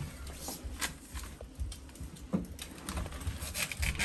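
Kitchen knife scraping and rubbing against the rough skin of a large yam as it is peeled, with short scratches and taps that come thicker near the end.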